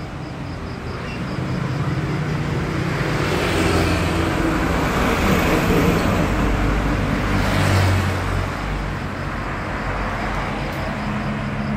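Street traffic: vehicle engines and tyres running steadily, swelling as vehicles pass about four to six seconds in and again near eight seconds.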